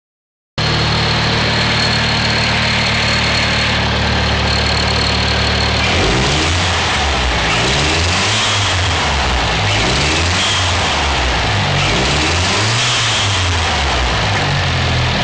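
Car engine idling just after a cold start, then given several light presses of the accelerator from about six seconds in, its pitch rising and falling with each press. Along with the presses, a brief strange higher-pitched noise joins the engine about three times. Its source is unknown, and it appears only while the engine is cold and goes away once warm.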